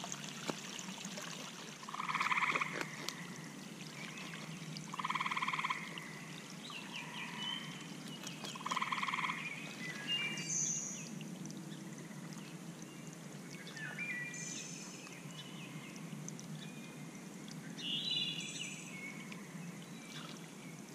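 Steady trickle of pond water through a leak in a beaver dam, under frog calls: three short pulsed trills about three seconds apart, which are the loudest sounds. Several higher, shorter chirps follow in the second half.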